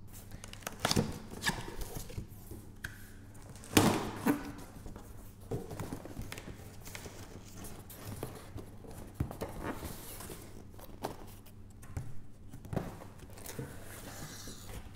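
A cardboard box being opened and handled: flaps pulled open and an inner cardboard box lifted out, with irregular knocks, scrapes and rustles, the loudest knock about four seconds in. A faint steady low hum runs underneath.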